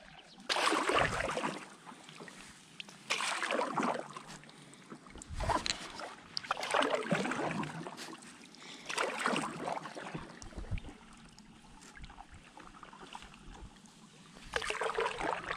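Paddle strokes from a stand-up paddleboard: the blade dips and pulls through river water with a splash and gurgle every couple of seconds, with a pause of a few seconds before a last stroke near the end.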